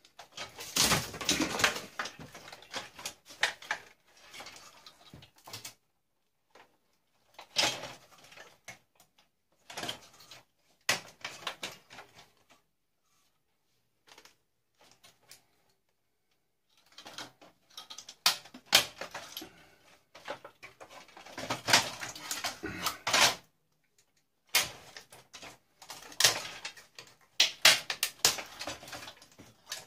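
Clicks, knocks and rattles of plastic and metal parts being handled and pulled apart while stripping an old tube TV for scrap, in irregular bursts with a lull of a few seconds in the middle.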